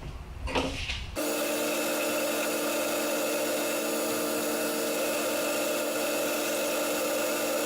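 Clausing metal lathe running while a parting tool cuts into the spinning workpiece to part it off. It cuts in abruptly about a second in, as a steady hum of several tones with an even rubbing hiss over it.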